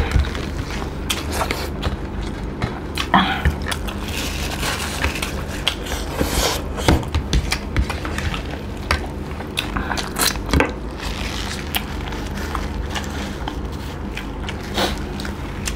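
Close-up eating sounds: biting and chewing fried chicken legs and rice, with many short irregular smacks and clicks, over a steady low hum.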